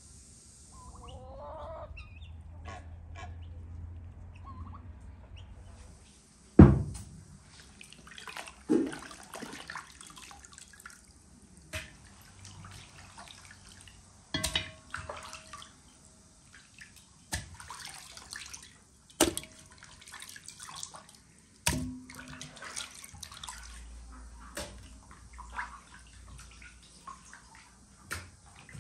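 Pieces of raw goose being lifted from a basin of water and set down in a large aluminium pot: a series of sharp wet thuds and knocks, the loudest about six seconds in, with splashing and dripping water between them.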